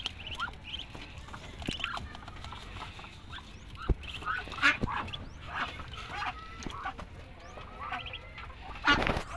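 Muscovy ducklings peeping over and over in short high calls. A single knock comes about four seconds in, and a short loud rush of noise comes near the end.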